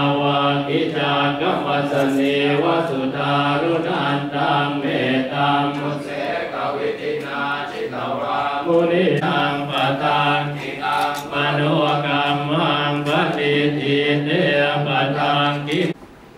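A group of Buddhist monks chanting in Pali in unison on a low, steady pitch. It cuts off abruptly near the end.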